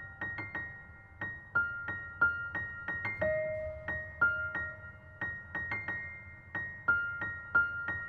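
Background music: a gentle piano melody of single notes, each struck and left to ring.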